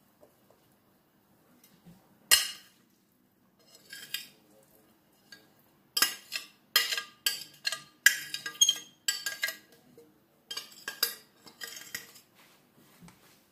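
Metal spoon scraping and clinking against a glass dish as filling is emptied out of it: a sharp clink about two seconds in, a few lighter knocks, then a busy run of scrapes and clinks through the second half.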